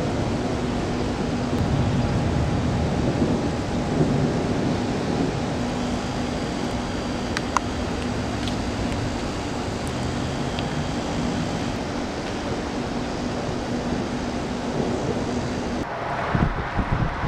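Thunder rumbling over a steady outdoor background with a low, even hum. Near the end the background changes abruptly, with wind buffeting the microphone.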